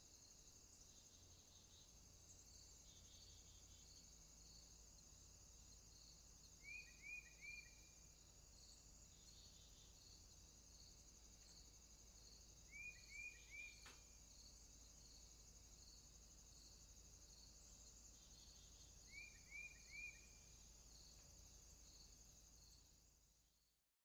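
Faint forest ambience: a steady high-pitched insect drone, with a bird calling a short phrase of three quick downward-slurred notes three times, about six seconds apart. The sound fades out at the very end.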